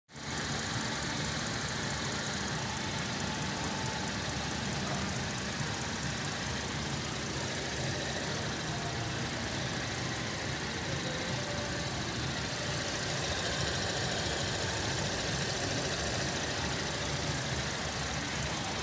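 Holden Commodore 3.6-litre V6 engine idling steadily, heard close up over the open engine bay.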